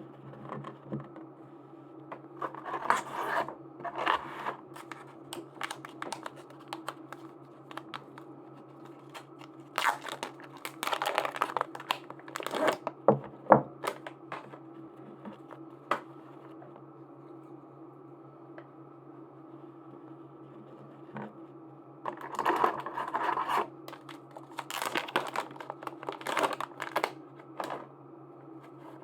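Plastic merchandise packaging being torn open and handled, crinkling and crackling in three spells of a few seconds each. A steady low hum runs underneath.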